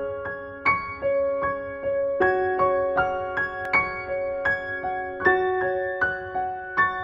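Gentle background music on a keyboard: a slow run of single notes, each struck and left to ring and fade.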